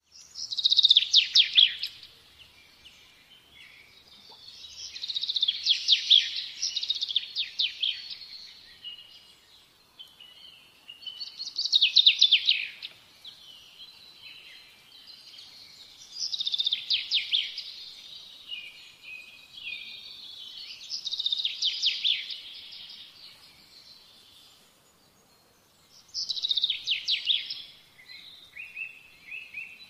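A songbird singing rapid trilled phrases, each lasting a second or two, repeated roughly every five seconds.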